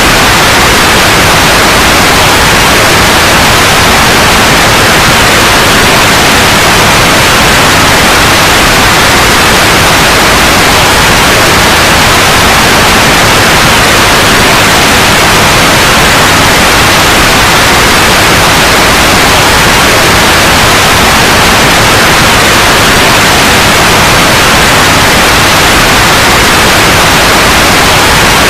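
Loud, steady white noise: an even hiss with no change or events.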